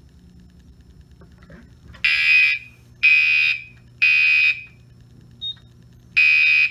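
Gentex Commander 2 mechanical fire-alarm horn sounding the code-3 temporal pattern: three short buzzy blasts a second apart, a pause, then the next round starting near the end. It is the signal that the Bosch F220-P smoke/heat detector has gone into alarm on a magnet test, with the panel in walk test.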